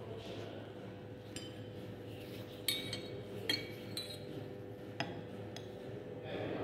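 Glass stirring rod clinking against a glass conical flask as drops of the titration mixture are taken out for the external-indicator spot test: about half a dozen light clinks, a few of them ringing briefly.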